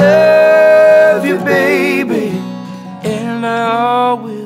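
Acoustic band playing: several voices singing a wordless harmony over strummed acoustic guitar and resonator guitar, opening on a long held note and then moving in shorter phrases.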